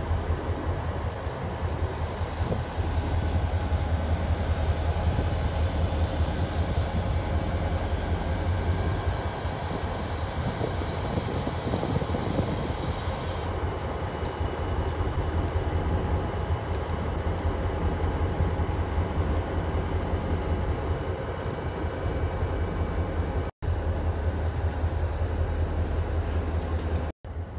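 Diesel switching locomotive and covered hopper cars rolling slowly, with a steady low engine drone. A loud hiss starts about two seconds in and stops about halfway through. The sound cuts out briefly twice near the end.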